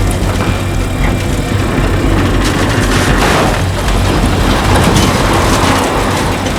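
Heavy diesel engine of the recovery equipment running steadily under load as a wrecked trailer is pulled up a bank, with a dense noisy haze and scattered short clicks and creaks over it.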